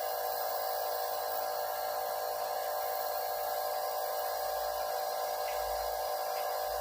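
Nebulizer compressor running steadily: a constant electric hum with an even hiss of air, as it nebulizes medicine for a cat with a cough and breathing difficulty.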